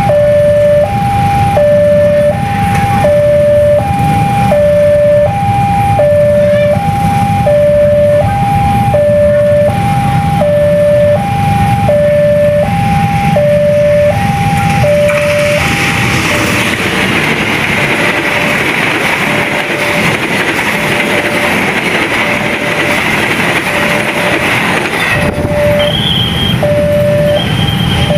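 Railway level-crossing warning alarm sounding a two-tone high-low chime about every two seconds over a low steady rumble. About halfway through, the Bangunkarta train passes close by: a loud rush of wheel-on-rail noise buries the alarm, then eases off near the end, when the alarm's low tone is heard again.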